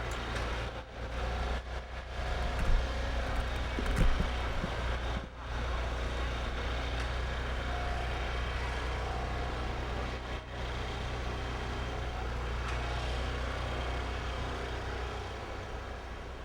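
Steady vehicle engine and road noise with a low hum. It is broken by a few brief dropouts, with a couple of short knocks in the first few seconds.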